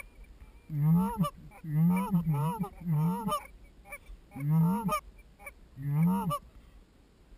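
Canada goose honks, one clean voice giving a series of calls about one a second, some in quick pairs. Each honk is a low note that breaks upward, the pattern of a goose call blown by a hunter in the blind.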